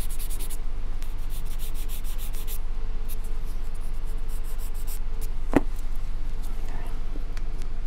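Sanding block with sandpaper rubbing back and forth on a small balsa piece: quick scratchy strokes for the first two and a half seconds, then lighter scattered strokes. There is a single sharp knock about five and a half seconds in as the block is set down, over a steady low hum.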